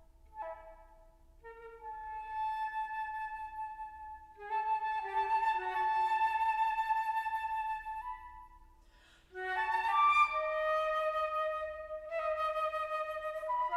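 Solo flute playing slow, held notes: soft and broken at first, then growing louder about four seconds in, fading briefly, and coming back loudly about nine and a half seconds in.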